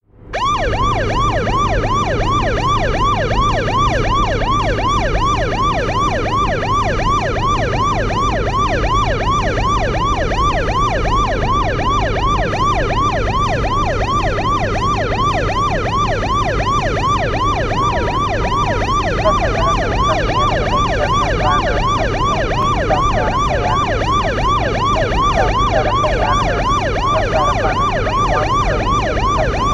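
Police car siren on a fast yelp, its pitch sweeping up and down about three times a second, over steady engine and road rumble. It rises in quickly at the start, and a fainter second wavering tone joins about two-thirds of the way through.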